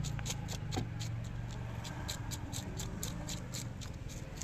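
Knife scraping the scales off a large snakehead murrel in quick, even strokes, about five a second, over a low background rumble.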